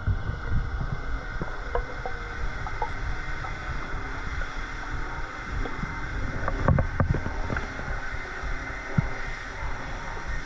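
Underwater noise picked up by a submerged camera: a steady low rumble of water, with a few faint clicks and a short cluster of clicks and knocks about seven seconds in.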